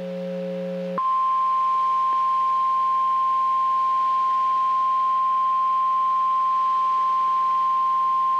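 NOAA Weather Radio warning alarm tone, a single steady high beep at about 1050 Hz that starts abruptly about a second in and holds without change. It is the attention signal that comes before a spoken emergency weather alert. Before the tone there is a low steady buzz from the receiver.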